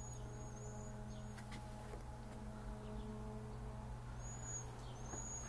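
A small bird chirping, a quick run of short high notes at the start and two more about four seconds in, over a steady low hum.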